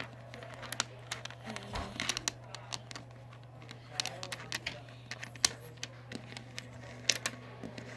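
Small magnetic balls clicking and snapping together as they are handled and shaped, a string of irregular sharp clicks, over a steady low hum.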